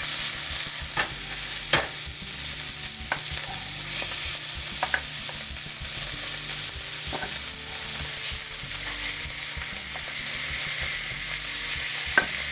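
Beef steaks searing in a hot pan with a little vegetable oil: a steady frying sizzle with a few scattered pops.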